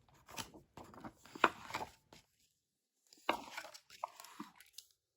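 Paper rustling and crinkling as a picture book's pages are handled and turned, in two spells with a short pause between.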